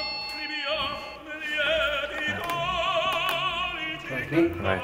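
Operatic-style singing with long held notes and a wide, even vibrato.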